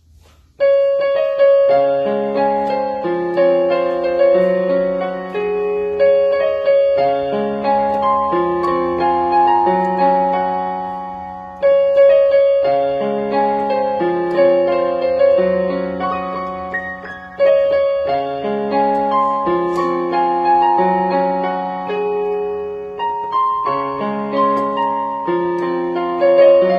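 Yamaha portable keyboard played in a piano voice: a melody over chords that starts about half a second in, with the same phrase coming back several times.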